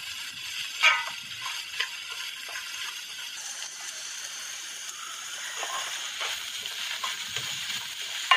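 Sliced onions and curry leaves sautéing in oil in a metal pan, sizzling steadily as the onions give up their water, with a few scrapes of the stirring spoon against the pan.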